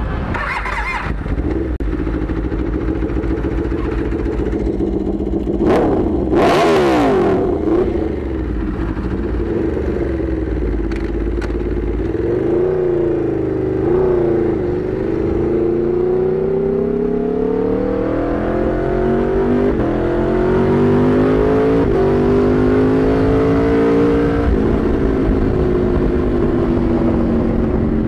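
Aprilia RSV4 Factory's V4 engine through an SC-Project CRT exhaust, revving and pulling through the gears while riding. Its pitch climbs steadily and drops sharply at each gear change, with a short sharp burst of sound about six seconds in.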